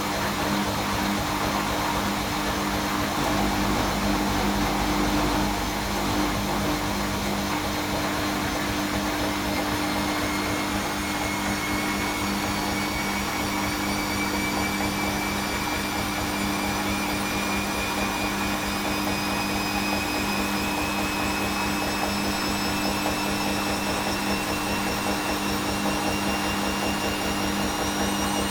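Bosch WFL1611 front-loading washing machine spinning after the prewash: the drum speeds up, its motor whine rising slowly and steadily in pitch over a steady low hum.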